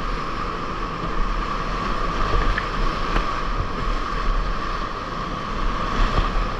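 Whitewater rapids rushing and splashing around a kayak as it is paddled through big standing waves, heard close up from the boat as a steady, loud rush.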